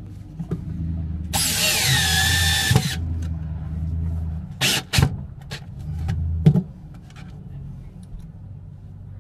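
Cordless drill driving screws through steel L-brackets into the wooden galley cabinet. A long run of the motor about a second in has a whine that drops in pitch as the screw bites, followed by a few short spurts of the drill near the middle and end.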